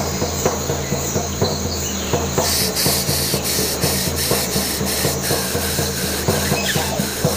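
Hide frame drum struck steadily with a padded beater, about two beats a second, over the constant rush of river water.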